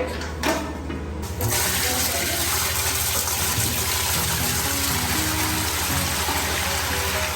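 Steady gush of liquid pouring, starting about a second and a half in, over background music.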